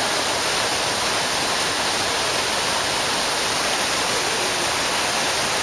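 A steady, unbroken rush of water, a loud even hiss with no rhythm and no breaks.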